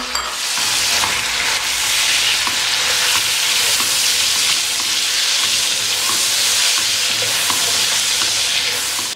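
Mutton, fried onions, tomatoes and green chillies sizzling in hot oil in a wok while being stirred with a silicone spatula. The frying makes a steady hiss, with faint scrapes from the stirring.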